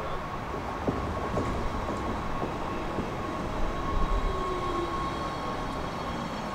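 Electric passenger train running along the tracks, with sharp wheel-on-rail clicks and a falling motor whine about four seconds in, over a steady high tone.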